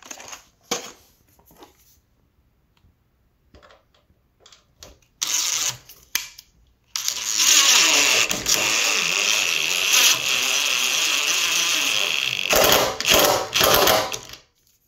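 Cordless drill-driver driving a 7 mm coarse-thread Confirmat furniture screw through a door hinge into the door. There is a short burst about five seconds in, then a steady motor whine for about five seconds, ending in a few louder, rougher bursts near the end.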